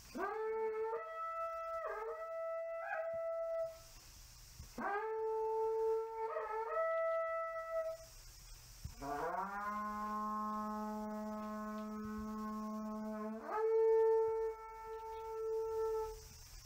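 A synthetic, voice-like tone sings long held notes in three phrases. Each phrase starts with an upward slide. The last phrase holds a low note for several seconds, then jumps higher near the end.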